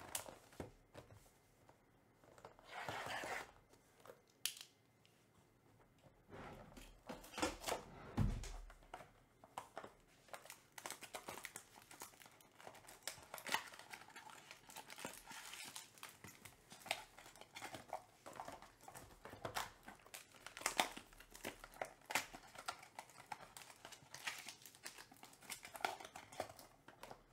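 Faint crinkling and tearing of the clear plastic wrap on a trading card pack as it is opened, with many short clicks and rustles of the cards and packaging being handled. A dull thump comes about eight seconds in.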